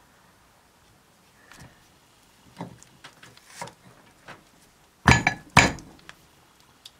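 Light knocks of cast iron castings being shifted against each other by hand, then two sharp metallic clanks about half a second apart, about five seconds in.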